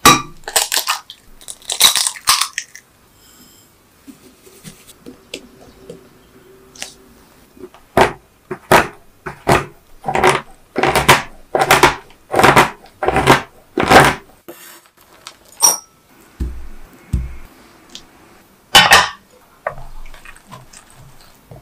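A knife chopping through a bar of dark chocolate on a cutting board: about a dozen sharp, crunching chops, roughly two a second, in the middle of the stretch. Before them come a few sharp cracks, with an egg being cracked against a glass bowl. Near the end there is one more loud knock.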